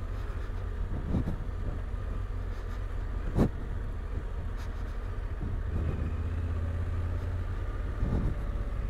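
Yamaha Ténéré 700's parallel-twin engine running at low revs as the motorcycle rolls along a dirt track, with a single sharp knock about three and a half seconds in.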